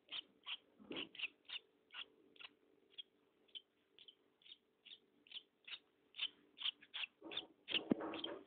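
Swallow nestling cheeping over and over, short high cheeps about two to three a second. A louder rustle of handling comes in near the end.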